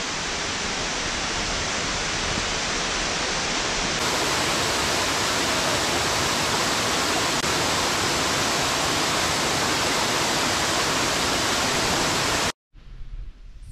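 Waterfall: a steady, loud rush of falling water that cuts off suddenly near the end, leaving only a faint, quiet outdoor background.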